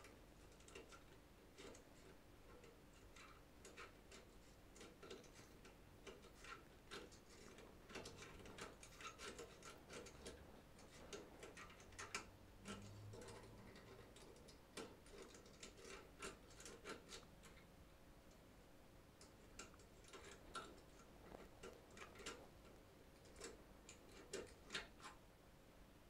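Faint, irregular metallic clicks and light scraping from a lock pick and tension wrench working the pins of a five-pin cylinder lock as it is picked. The clicks come in clusters, with a thinner stretch in the middle.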